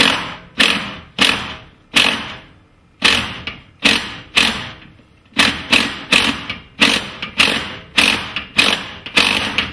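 Cordless impact driver driving a lag screw through a steel garage-door hardware plate into the wooden door jamb, run in short trigger bursts about two a second. The lag is being run in snug, not all the way home, so the plate can still be tapped square.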